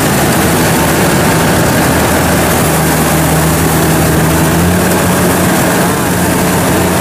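Kubota DC70 combine harvester's diesel engine running steadily under working load as it drives forward and starts cutting rice, its pitch rising slightly about two-thirds of the way in.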